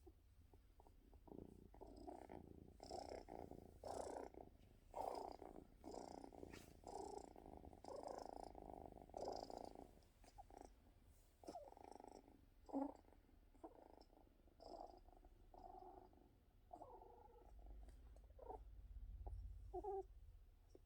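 Domestic cat purring in uneven stretches, with brief whimpering sounds mixed in, including a couple of short ones near the end.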